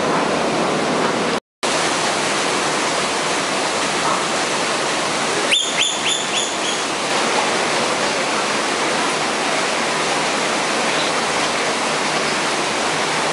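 Steady rushing of falling water, like a garden waterfall or stream, which cuts out briefly about a second and a half in. About five and a half seconds in, a bird gives a short run of high chirps.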